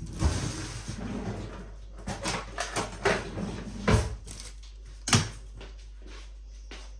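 Kitchen handling sounds: a run of irregular knocks and thuds, the loudest about four and five seconds in, then quiet for the last couple of seconds.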